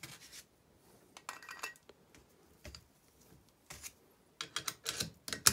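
Steel engine parts of a Fiat 126 Bis clinking and knocking as the crankshaft and its bearing shells are picked up and handled. A few scattered clinks come first, then a quicker run of sharper clinks in the last second, the loudest right at the end.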